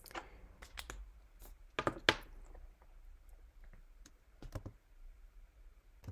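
Scattered clicks of computer keys being pressed, a few at a time with pauses between, the loudest two close together about two seconds in.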